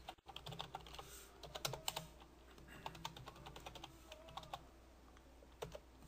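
Typing on a computer keyboard: irregular key clicks as a login name and password are entered, with a pause of about a second near the end before a last few keystrokes.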